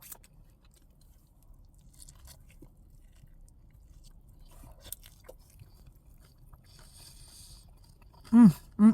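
Quiet chewing of a bacon cheeseburger, with soft wet mouth clicks and crunches. Near the end come two short, loud hums of enjoyment, each falling in pitch.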